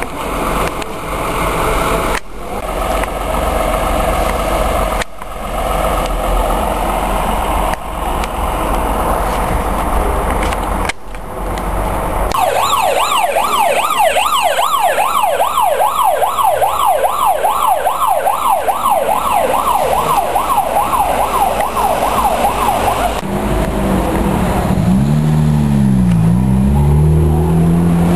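Vehicle engines and traffic, broken by a few abrupt cuts; about twelve seconds in, an emergency vehicle's siren starts a fast yelp, rising and falling two to three times a second, and stops suddenly some ten seconds later. A lower, slowly wavering tone follows near the end.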